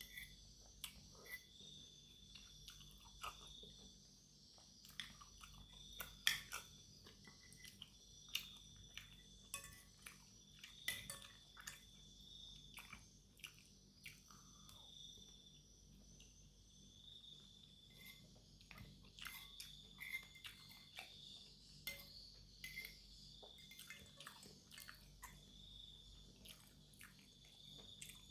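Faint close-miked chewing of chicken noodles and meatballs: soft wet mouth sounds with many short, sharp clicks scattered throughout. A faint insect trill repeats steadily in the background.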